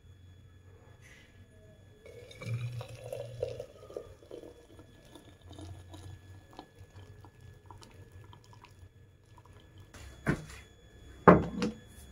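Hot milk tea poured from a pan through a plastic mesh tea strainer into a cup, trickling and splashing unevenly. Near the end come two sharp knocks, the second and louder about a second before the end.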